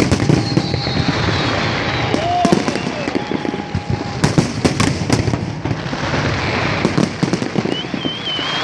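Fireworks display: a continuous crackle of shells with many sharp bangs in quick succession. Some steady whistling tones run through it, and a high warbling whistle comes near the end.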